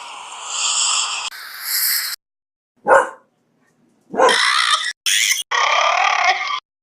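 A string of short, abruptly cut sound snippets with dog-like barks, broken up by sudden gaps of dead silence.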